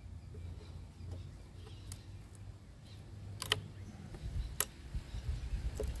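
A metal knife blade digging and prying into the brood comb and resin inside a split hollow log hive of Australian native bees, giving about four short sharp clicks and cracks, the loudest about halfway through, over a low steady rumble.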